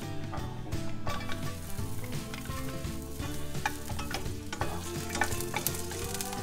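Sliced garlic sizzling in hot oil in a frying pan, stirred with a wooden spatula.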